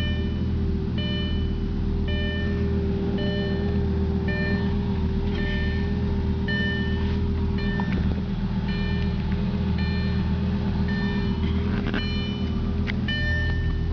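Lamborghini Gallardo's V10 engine idling steadily, with a short high electronic warning chime from the car beeping about once a second.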